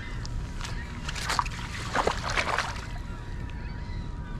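Shallow water splashing and sloshing as a large freshwater drum is grabbed and lifted out with lip grippers, the loudest splashes about one and a half and two to two and a half seconds in.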